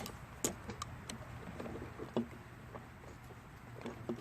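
Scattered light clicks and taps of hand tools and metal parts being handled on a lawn mower engine during carburetor removal, over a faint steady low hum.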